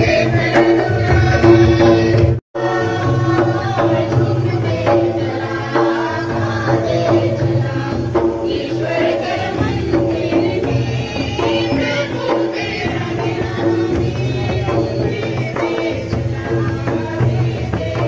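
Folk dance music: two-headed barrel hand drums beating a rhythm under singing, briefly cut off about two and a half seconds in.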